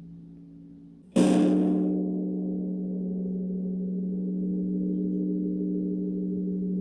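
Large Korean Buddhist temple bell (beomjong) struck once about a second in, as the hum of the previous stroke fades. Its deep hum then rings on steadily.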